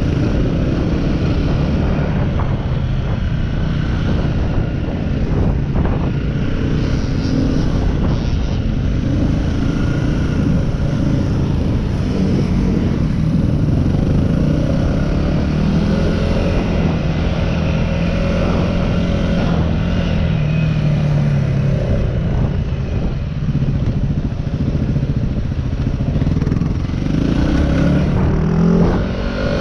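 Yamaha WR250R's single-cylinder four-stroke engine running under load as the dirt bike is ridden, its revs rising and falling with throttle and gear changes, with a steady rumble of wind on the microphone.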